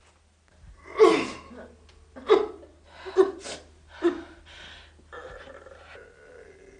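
A woman sobbing: about five sharp, gasping sobs in the first four and a half seconds, then quieter crying.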